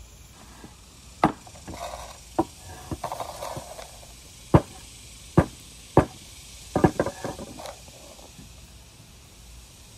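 Hard wooden knocks and clunks, about seven at uneven spacing, with short scraping sounds between some of them: wood and a hand plane being handled and worked at a bench.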